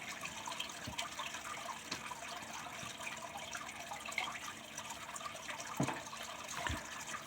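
Steady trickling water, with a few soft low knocks, the last ones near the end.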